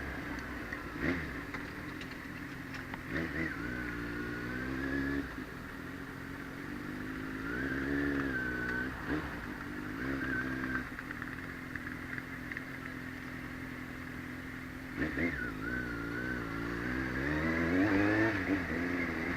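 Kawasaki Z750's inline-four engine running under way, its pitch rising and falling several times as the throttle is opened and closed.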